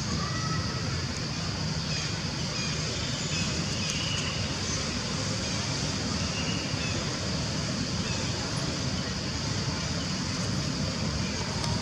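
Steady outdoor background noise: a low rumble under a continuous high-pitched buzz, with a few faint short calls.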